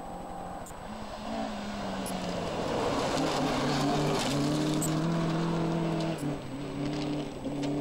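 Ford Escort Mk1 rally car passing at speed on a gravel stage, its engine held high with a loud hiss of tyres and thrown gravel as it goes by about three seconds in. The engine note drops sharply about six seconds in and then holds again as the car pulls away.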